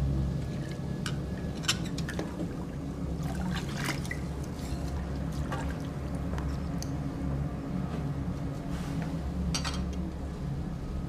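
Water being poured and sloshed, with scattered clinks and knocks, over a low steady rumble.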